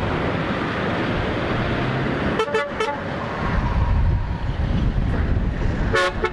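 Scania tanker truck driving past with its engine running, sounding its horn in two short toots about two and a half seconds in and once more near the end.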